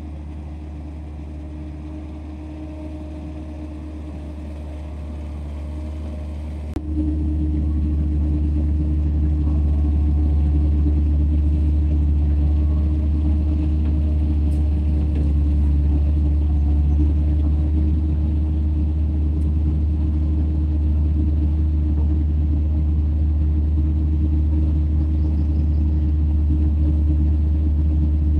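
Caterpillar 307C excavator's diesel engine running steadily as the machine digs, a constant low rumble. It becomes abruptly louder about seven seconds in and holds steady after that.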